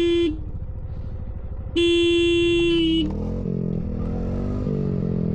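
A vehicle horn honks twice, a short one ending just after the start and a longer steady one of about a second. A motorcycle engine then revs up, rising in pitch and wavering as the throttle is worked.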